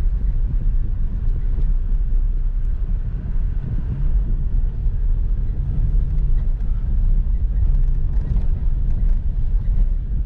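Steady low rumble of road and engine noise from a moving car, heard from inside the cabin.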